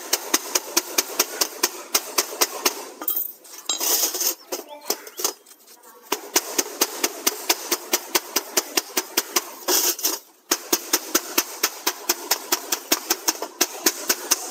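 Hand hammer rapidly striking the seam of a rolled sheet-steel round duct section, about five sharp metallic blows a second, closing the lock seam. The hammering breaks off briefly twice.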